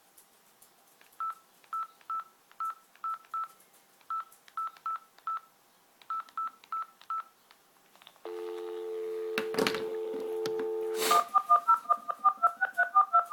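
Telephone being dialled: three quick runs of short single-pitch keypad beeps, then a steady dial tone, then a fast string of touch-tone (DTMF) digit beeps as a number is dialled. A couple of clicks come on the line just before the dialling starts.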